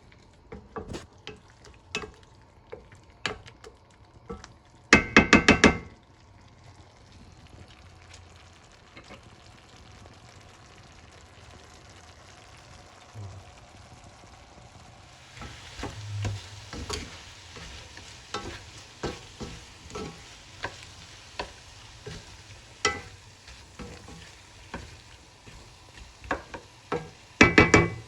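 A spoon stirring and scraping butter chicken sauce as it sautés in a pot, with scattered knocks and a soft sizzle that grows from about halfway through. A quick run of loud ringing knocks comes about five seconds in and again near the end.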